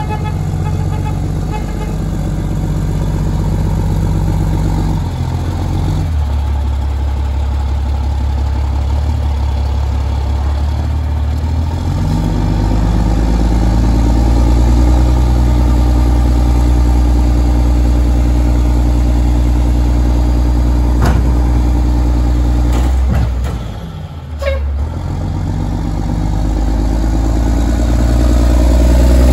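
Diesel engine of a 2007 Mack LE garbage truck with a Heil rear-loader body, growling as the truck creeps forward, its pitch stepping up twice in the first half. About five seconds before the end the engine note dips briefly, then climbs again and is loudest near the end.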